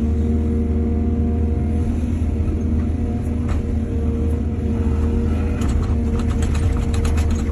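Excavator's diesel engine running steadily, with a rapid rattling clatter for about two seconds near the end.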